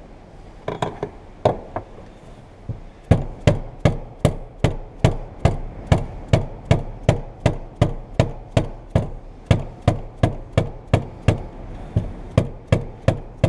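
A small hammer tapping a screwdriver against the fuel pump's retaining lock ring to drive it round counterclockwise. A few hits come early, then from about three seconds in a steady run of sharp taps, about two and a half a second.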